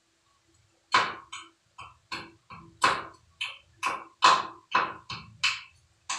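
Hammer tapping on metal, about a dozen quick strikes that each ring briefly, starting about a second in.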